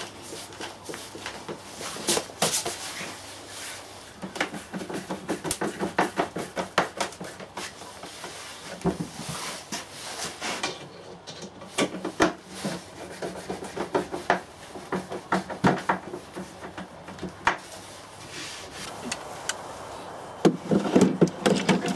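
Wood scraping and rubbing from hand tools working pine boards, in runs of short rasping strokes. Near the end a small wooden drawer is slid in and out of the unit in a louder burst.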